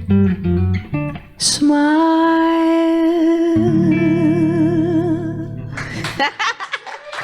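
Acoustic guitar picking a short run of notes, then a singer holds the song's final note, the vibrato widening toward its end, over a ringing guitar chord. Clapping starts just before the end.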